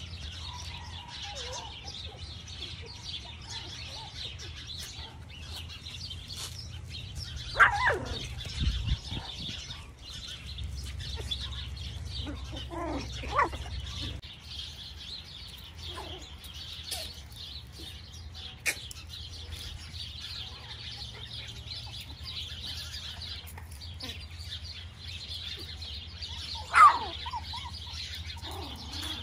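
Steady chirping of backyard birds, with a few short falling yelps from miniature Schnauzer puppies, the loudest near the end.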